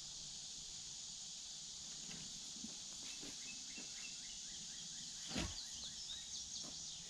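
Outdoor ambience: a steady high hiss with birds chirping in short runs of notes through the second half. One dull knock about five seconds in.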